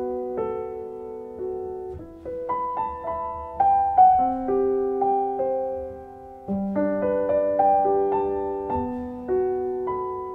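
Solo piano playing the instrumental introduction to a song: notes and chords struck one after another and left to ring and fade, with no voice.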